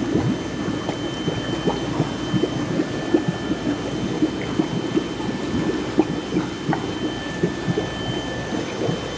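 Water bubbling and splashing in a tank of young eels feeding at the surface, many small irregular pops over a steady watery noise, with a faint steady high tone throughout.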